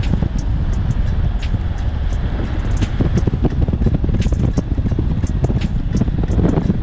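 Wind buffeting the microphone and road rumble as a NAMI Klima Max electric scooter runs at speed on a top-speed run, with scattered sharp clicks throughout.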